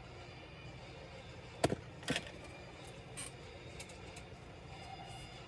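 A few short, sharp clicks and taps of hard plastic and metal laptop parts being handled, the loudest about one and a half seconds in, over a steady low background hum.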